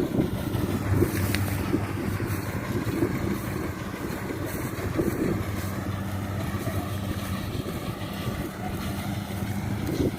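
Rice combine harvester's engine running steadily: a constant low drone over rough mechanical noise.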